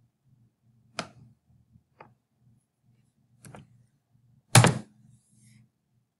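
Computer keyboard keys pressed four times, about one, two, three and a half and four and a half seconds in, the last press the loudest, over a faint low hum.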